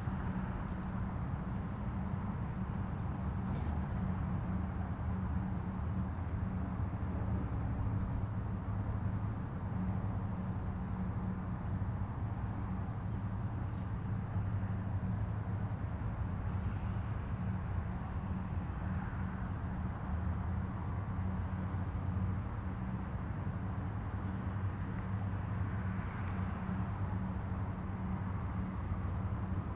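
Distant highway traffic: a steady low rumble and hiss of passing vehicles blended together, with no single vehicle standing out. A faint, high, evenly pulsing chirp runs above it.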